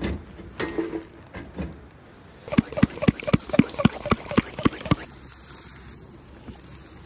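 Hand pump pressure sprayer being pumped, about ten quick strokes at roughly four a second, starting a couple of seconds in: pressurising the sprayer before spraying.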